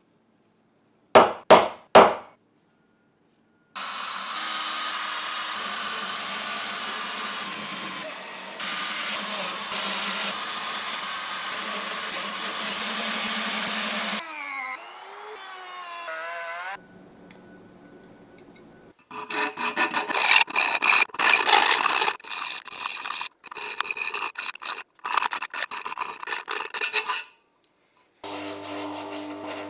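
Brass parts being cut and filed by hand. Three sharp clicks come first, then a steady cutting noise for about ten seconds. Later comes a run of irregular rasping strokes.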